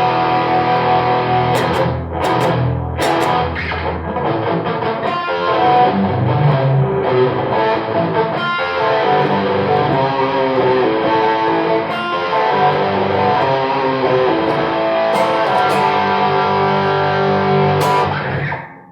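Kramer Baretta Special electric guitar played through an amplifier on rusted old strings: a continuous run of chords and notes that stops shortly before the end.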